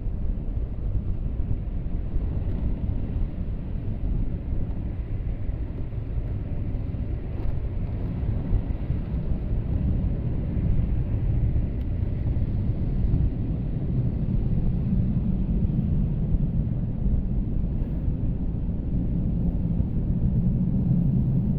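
Truck cabin noise: a steady low engine and road rumble that gets a little louder and heavier in the second half.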